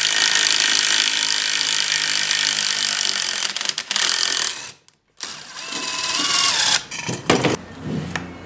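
DeWalt cordless impact driver hammering as it turns the forcing screw of a crankcase splitter, driving the two-stroke engine's crankcase halves apart. It runs steadily for about three and a half seconds, stops, then runs again briefly with a rising whine. A few knocks near the end come as the freed case half is handled.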